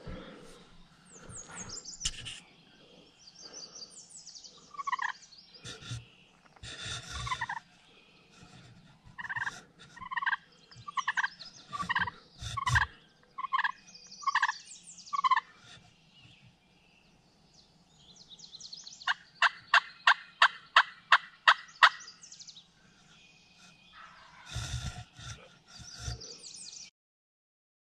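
Turkeys calling: a run of about eight evenly spaced two-note yelps, then a loud, fast string of about ten sharp notes, with other turkey calls before and after. Small birds chirp faintly behind.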